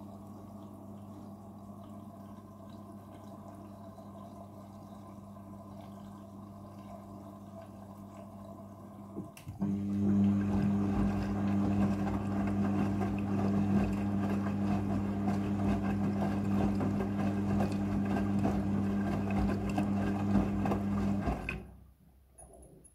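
Front-loading washing machine in its rinse cycle: a faint steady electrical hum, then about nine seconds in water starts rushing through with a much louder hum for about twelve seconds before cutting off near the end.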